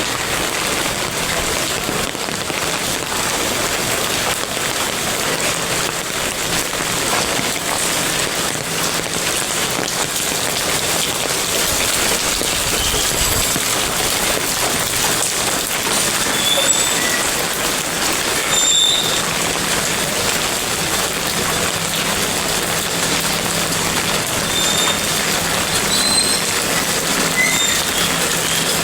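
Heavy rain falling and pattering on surfaces, a dense, steady hiss. A low steady hum runs under it for stretches, and a few faint short high chirps come through near the middle and the end.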